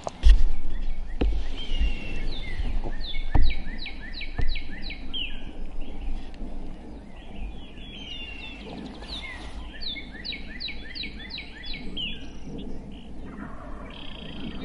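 Songbirds singing in the morning chorus, one bird twice giving a quick run of about half a dozen sliding notes. Several low thumps on the microphone in the first few seconds, the first the loudest.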